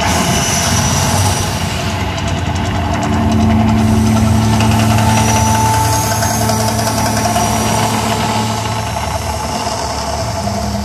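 The Mirage volcano attraction erupting: a loud, steady low rumble with a few held tones over it, louder in the middle.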